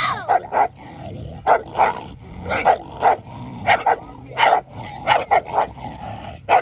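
Dog barking in short, repeated barks, with a high wavering yelp right at the start.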